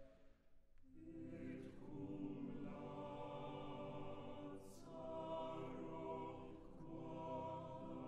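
Mixed chamber choir singing a cappella in slow, held chords. The sound drops away at the start, and the voices come back in about a second in.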